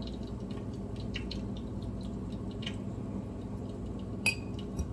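Metal fork picking wet pickle slices out of a pickle jar and laying them on a burger: small soft wet clicks, then a sharp ringing clink a little after four seconds in.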